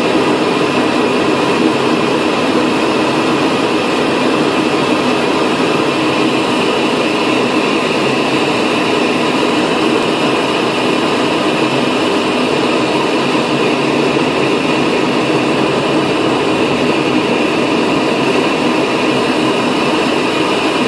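Aircraft engine and airflow noise heard from inside the cockpit on final approach: a loud, steady drone with a faint high whine over it.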